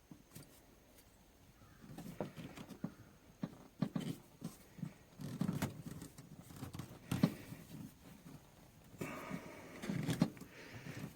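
Spring squeeze clamps and rubber vacuum hose being worked by hand in the engine bay: irregular clicks, taps and short scraping rustles, starting about two seconds in.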